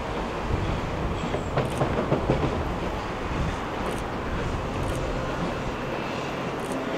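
Steam locomotive TKVJ nr 12 working under load at a distance, a steady rumbling rail noise with a cluster of short sharp knocks about two seconds in.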